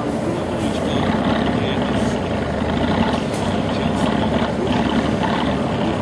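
Trial truck's diesel engine running steadily under load as the truck crawls up out of a rocky pit.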